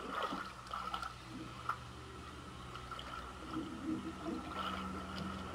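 Swimming-pool water lapping and gurgling, with small drips and splashes, as a swimmer in a snorkel mask moves through it.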